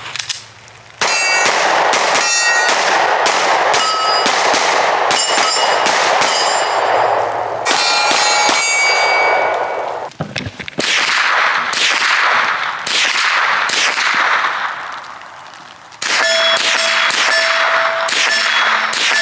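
Three strings of rapid gunfire, each shot followed by the clang and ring of steel targets being hit. The strings start about a second in, about halfway, and near the end, and the plates ring on with a steady tone at the close.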